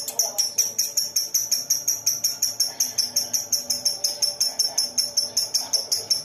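Lovebird singing a fast, unbroken string of sharp, high chirps, about seven a second and very even in pace: the 'ngetik' run into the 'ngekek' rapid-fire song that lovebird keepers prize.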